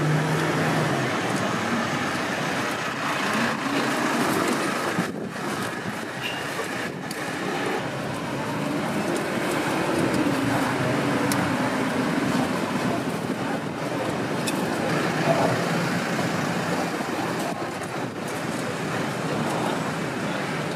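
Steady street ambience: traffic noise with faint background voices.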